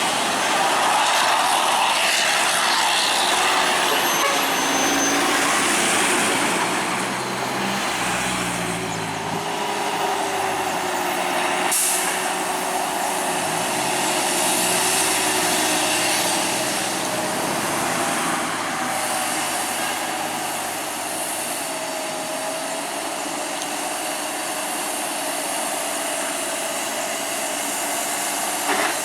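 Heavy truck working down a steep mountain road, its engine and brakes running under the traffic noise, with a wavering whine from about a third of the way in.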